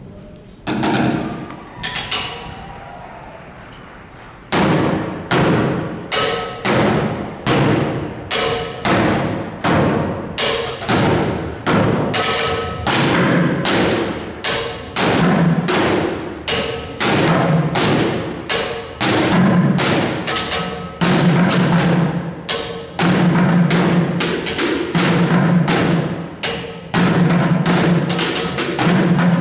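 Live percussion played on struck objects such as metal pans and plastic buckets: a couple of ringing hits, then a steady driving beat from about four seconds in, with deeper bucket-drum thuds growing stronger in the second half.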